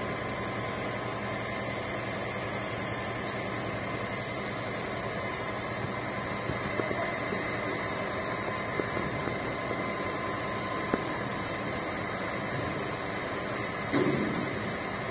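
Steady mechanical drone and hiss with a constant thin whine, broken by a few short knocks and a louder knock near the end.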